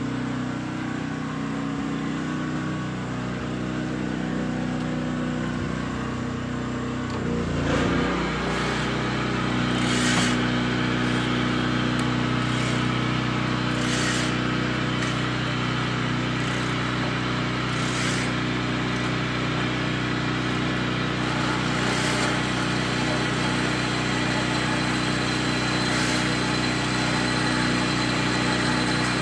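Kalamazoo 8C horizontal metal-cutting band saw running with a steady motor hum. About eight seconds in, the blade starts into a 2.5-inch square steel tube with a 1/4-inch wall, adding a cutting hiss and a sharp tick roughly every two seconds.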